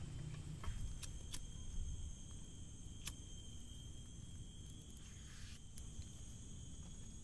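Insects droning steadily on a few high, even tones, with a handful of sharp clicks in the first three seconds.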